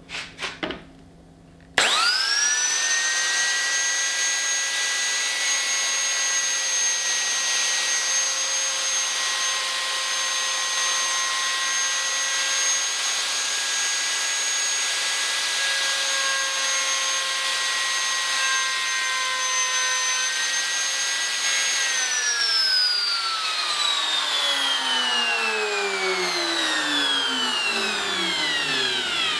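Electric wood router switched on about two seconds in, running at a steady high whine while routing a cable channel in the wooden bench frame, then switched off about seven seconds from the end and spinning down with a long falling pitch. A few small handling clicks come just before it starts.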